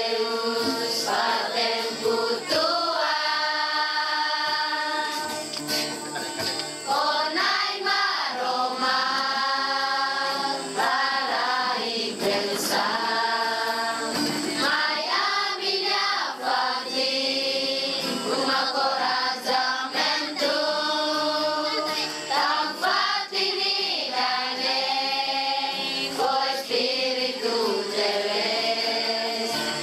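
A group of voices singing a song together, with some notes held for a second or two.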